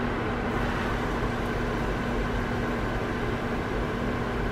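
Steady fan-like hum with an even hiss, unchanging throughout.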